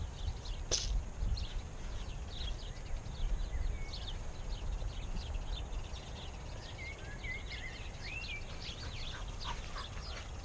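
Small birds chirping and singing, many short quick calls throughout with a few whistled notes around the middle, over a gusty rumble of wind on the microphone. A single sharp tick sounds a little under a second in.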